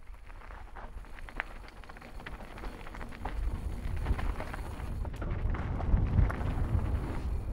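Mountain bike rolling fast down a dirt singletrack: tyres rumbling over the dirt with scattered clicks and rattles from bumps, and wind buffeting the microphone. It grows louder as the bike picks up speed.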